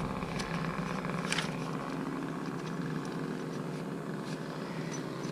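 Steady low background hum, with a couple of faint light clicks.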